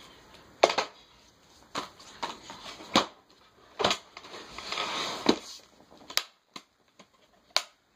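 Handling noise: a series of knocks and clunks as boxes are moved and set down, the loudest about half a second in, with a stretch of rubbing or sliding around five seconds in.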